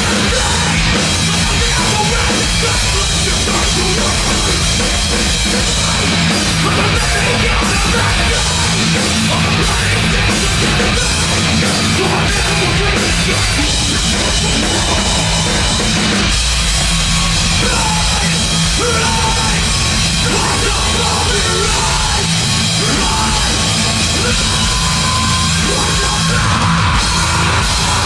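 Live metalcore band playing loud and without a break: distorted electric guitars, bass and a drum kit.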